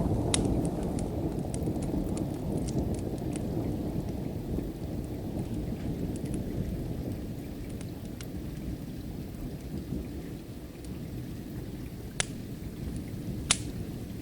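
Thunder rumbling low and slowly dying away over steady rain. A wood fire pops sharply now and then, with two louder pops near the end.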